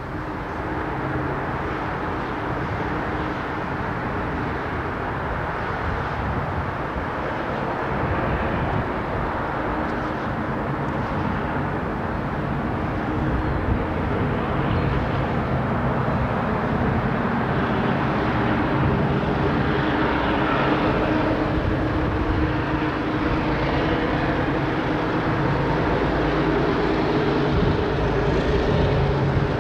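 KiwiRail diesel-electric locomotive engine working at full power, a steady heavy drone that grows gradually louder.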